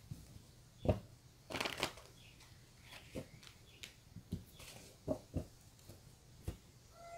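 A deck of oracle cards being shuffled by hand: a short rustling shuffle about a second and a half in, with scattered light taps and clicks as the cards are handled.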